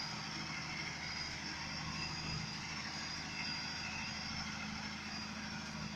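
Heavy vehicle engine running steadily, a low even hum.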